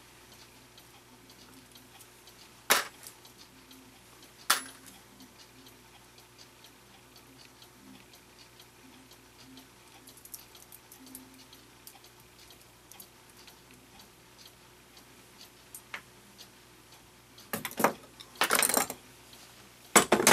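Small metal clock parts and tools clicking sharply now and then on a workbench, with a busier run of clicks and rattles near the end, over a faint steady hum.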